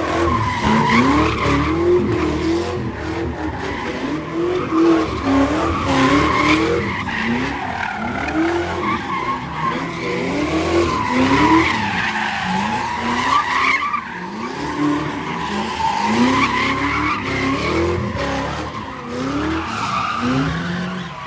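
Cars doing donuts on pavement: tyres screeching steadily while an engine revs in repeated rising surges, about one a second.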